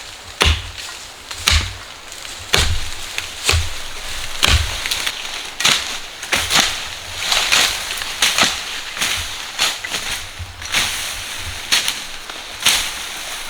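A hand tool striking repeatedly in a steady working rhythm, about one blow a second, each a sharp chopping or digging impact.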